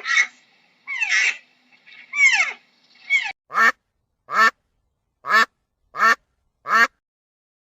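A few short calls falling in pitch, then a duck quacking five times in an even rhythm, a little under a second apart.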